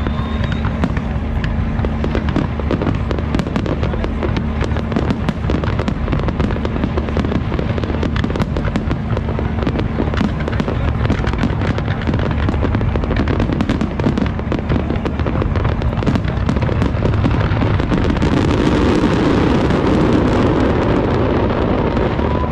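Aerial fireworks display: a rapid, dense run of shell bursts and crackling bangs, growing thicker and louder near the end.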